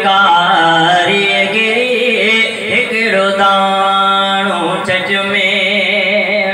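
A man chanting a naat, an Islamic devotional song, with no instruments, amplified through a microphone. He draws out long, held notes with wavering ornaments.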